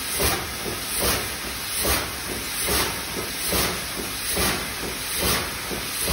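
25-horsepower double-acting stationary steam engine running, its steam hissing out in a regular chuff about every 0.8 seconds.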